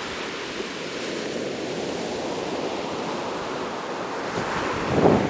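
Ocean surf washing onto the shore in a steady rush, swelling louder near the end.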